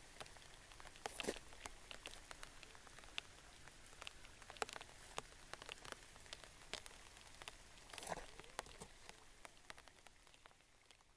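Light rain falling on a lake's surface: a steady soft hiss with irregular taps of individual drops close by, fading out near the end.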